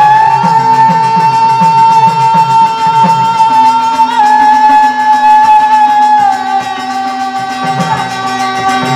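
Birha folk ensemble music: a long held note over harmonium and dholak-style drum strokes. The note dips slightly about six seconds in. The drumming is steady for the first three seconds and then thins out as a lower drone comes in.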